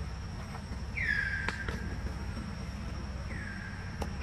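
Steady high-pitched insect drone, with two calls about two seconds apart that drop in pitch and then hold a steady note for about a second. A few sharp clicks over a low rumble.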